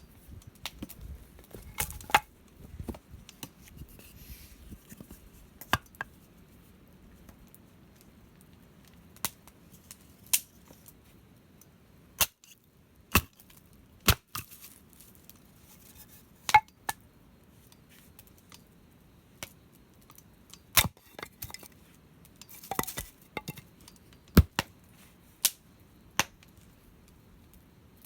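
A dozen or so separate sharp clicks and knocks of objects being handled, with a few light clinks.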